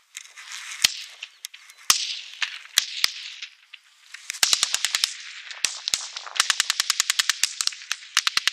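Small-arms gunfire in a firefight: a few scattered single shots, a short burst of automatic fire about four and a half seconds in, then a long burst of rapid automatic fire at about ten rounds a second from about six and a half seconds on.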